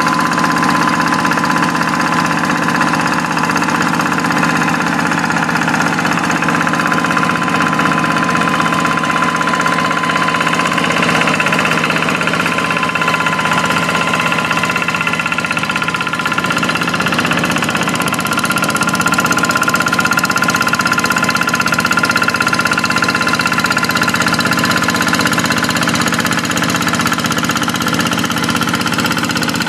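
Quick hand tractor's single-cylinder Kubota diesel engine running steadily while pulling a plow through a rice paddy, its pitch rising slightly about two-thirds of the way through.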